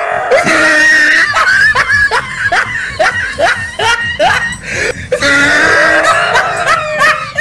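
A dog barking in a quick run of sharp barks, about three a second, then longer drawn-out cries in the second half.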